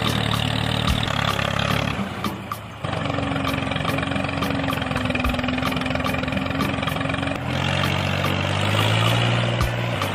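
Tractor engine running steadily, its sound changing about three seconds in and again near the end.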